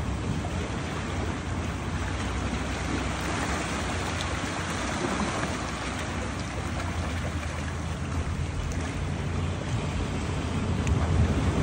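Small sea waves washing and lapping over the rocks and pebbles of a rocky shoreline as a steady rush of water, over a low rumble of wind on the microphone.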